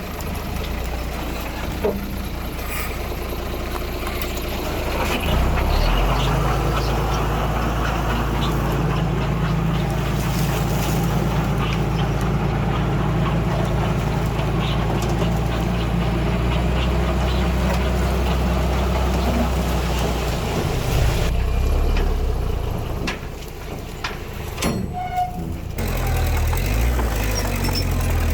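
Diesel engine of heavy earthmoving machinery running steadily, with scattered short knocks. It gets louder about five seconds in and eases off for a few seconds near the end.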